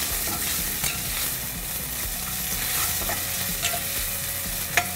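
Chopped red onion with green chili and ginger paste sizzling in hot oil in a non-stick pan, stirred with a spatula that scrapes and knocks against the pan, sharpest near the end.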